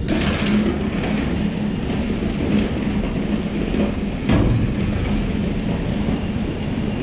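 Grain silo's unloading feeder running: a steady mechanical noise with a low hum, and a louder knock about four seconds in.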